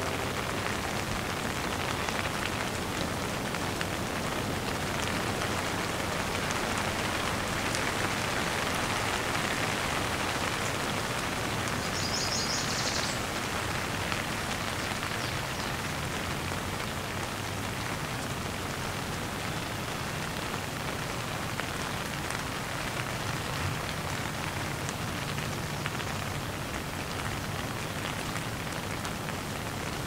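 Steady rain falling, an even hiss of many drops, with a brief high-pitched trill about twelve seconds in.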